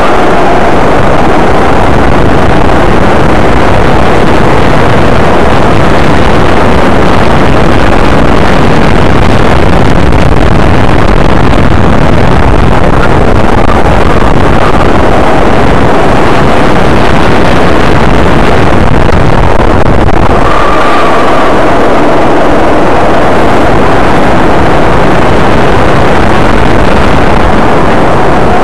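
Kart engine running hard at track speed, heard loud and close from a camera mounted on the kart, with the steady rush of air over the microphone.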